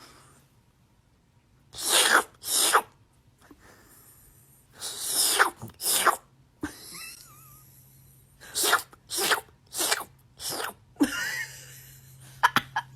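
A pet animal giving a series of sharp, sneeze-like huffs, about nine short bursts a second or two apart, with a faint squeaky chirp in between.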